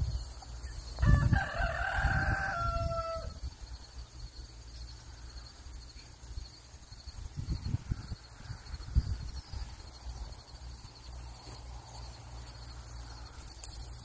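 A rooster crowing once: a single crow of about two seconds, starting about a second in and dropping in pitch at the end. Low rumbles come and go underneath.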